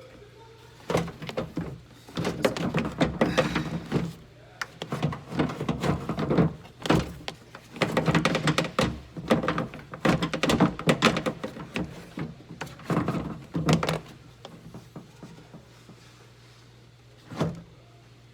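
Irregular knocks, clunks and rattles from hands working inside a car door and shifting its window glass. They come in dense runs for most of the time, then a single knock near the end.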